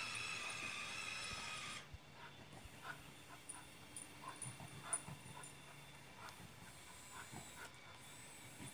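Small electric motor of an RC rollback truck's tilting bed, whining steadily and stopping about two seconds in. After it stops, only faint, scattered short high sounds remain.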